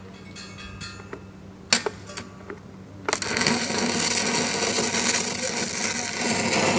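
A tack weld on a 4-inch weld neck flange and pipe: a few sharp metallic clicks, then about three seconds in the steady, loud crackle of an electric welding arc begins.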